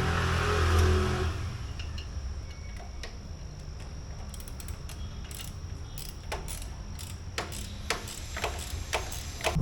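Ratchet wrench clicking as an exhaust clamp bolt is tightened, a run of quick irregular clicks over the last few seconds, after a brief noisy rush at the start.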